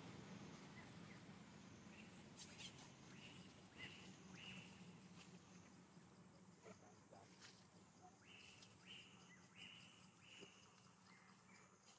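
Faint outdoor ambience with short high chirping calls coming in quick runs of several, plus a few soft clicks.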